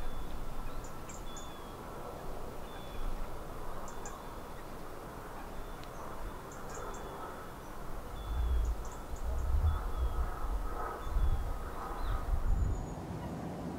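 Birds calling repeatedly with short high chirps over a steady outdoor background; a low rumble swells in about eight seconds in and fades again near the end.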